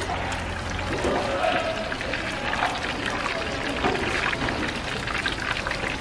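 Battered strips deep-frying in a large pan of hot oil: a steady sizzle with dense fine crackling.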